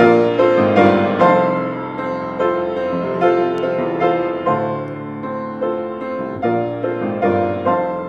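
Solo grand piano playing: notes and chords struck every half second to a second, each ringing on and fading.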